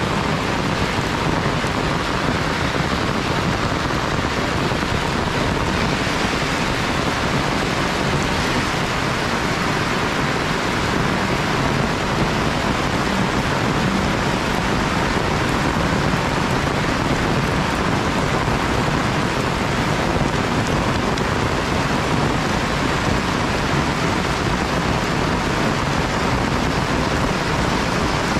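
Heavy rain falling steadily, a dense, even hiss with no letup.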